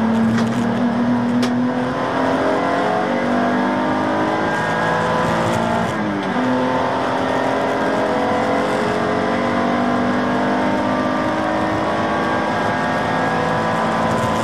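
A BMW Z4 Coupe (E86) race car's engine heard from inside the cabin, pulling hard under acceleration with its pitch climbing steadily. About six seconds in the revs drop for an upshift, then climb again.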